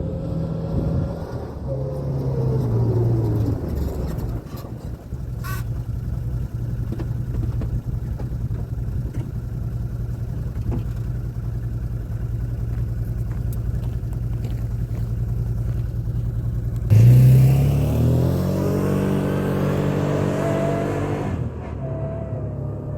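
Can-Am Commander 1000 side-by-side's V-twin engine on a test ride: revs rise and fall, then run steady for a long stretch. About 17 seconds in it turns suddenly louder, the revs climbing as it accelerates with a rush of noise, then the pitch drops away near the end.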